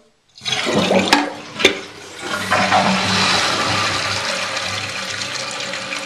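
A 2002 Toto Drake toilet flushing: water suddenly rushes out of the tank, with two sharp clicks a second or so in. The rush then settles into a steady, slowly fading flow of water.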